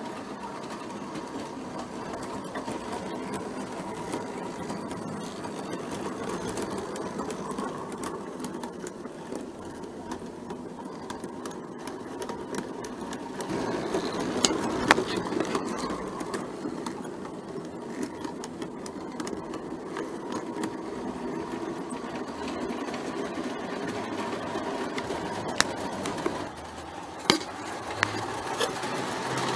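Three-rail O gauge model train running, heard from on board: a steady whirr from its electric motor and wheels on the track, with a few sharp clicks, once about halfway through and several near the end.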